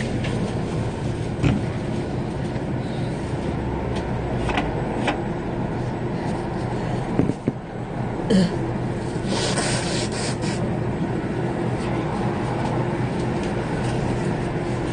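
Steady low hum with a constant background noise, broken by a few light knocks and about a second of hiss a little past the middle.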